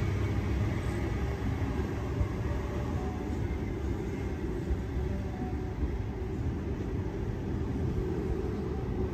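Sydney Trains Waratah electric train running through the station without stopping: a steady low rumble of wheels on the rails as it draws away.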